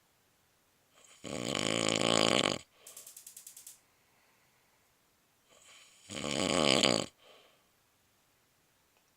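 A woman snoring in her sleep: two long, loud snores a little over a second each, about five seconds apart, the first followed by a brief rapid fluttering sound.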